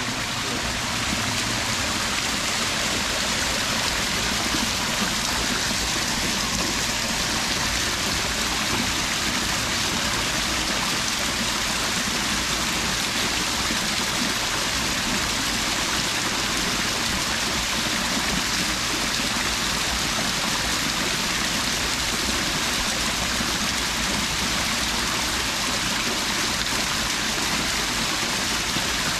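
Running water with a steady rush: water pouring into a pond, with no pauses or changes.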